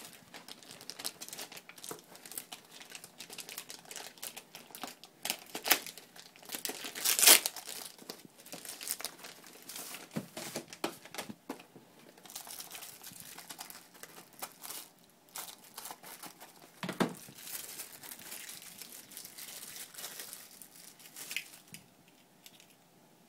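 Packaging being opened by hand: wrapping and small cardboard boxes crinkling and tearing in irregular rustles, loudest about seven seconds in and again around seventeen seconds.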